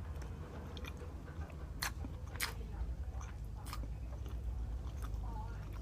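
A person chewing food close to the microphone, with a few sharp mouth clicks, over a steady low hum.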